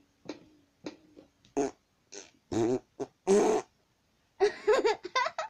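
Electronic keyboard played: a few short repeated notes about every half second, then louder animal-like noises that slide up and down in pitch.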